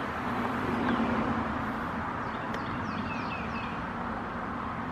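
Steady outdoor background noise with a faint low hum. Around the middle, a bird chirps several times in short falling notes.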